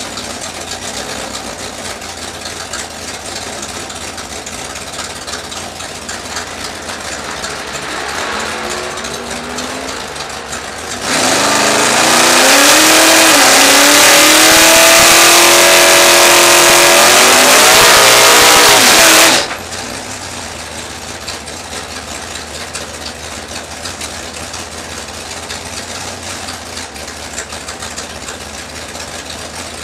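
Plymouth Duster drag car's engine idling, heard from inside the cabin. About eight seconds in it gets a brief rev. Then, for about eight seconds, it is held at high revs with a loud hiss of spinning tyres, as in a burnout, and it cuts back sharply to idle.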